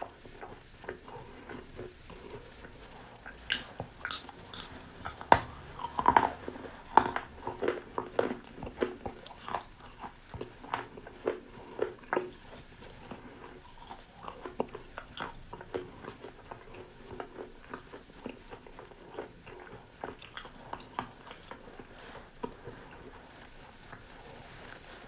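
A dog biting and chewing crunchy food: irregular sharp crunches, several a second, loudest about five to eight seconds in.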